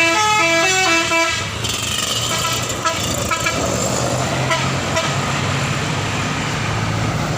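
A bus's telolet 'basuri' musical horn playing a quick run of stepped notes for about a second and a half, then the bus engine running steadily with a few short horn notes about three seconds in.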